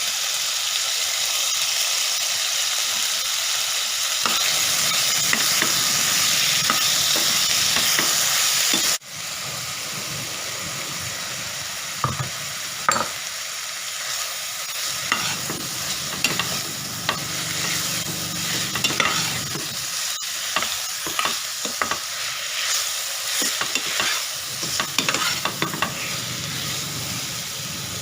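Food frying in hot oil in a pan, a steady sizzle. After a cut about nine seconds in, the sizzle goes on more quietly with a spoon stirring and scraping against the pan in irregular clicks.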